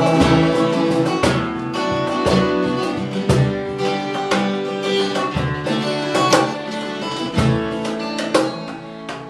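Three acoustic guitars playing an instrumental passage together, strummed and picked chords ringing, growing gradually quieter toward the end.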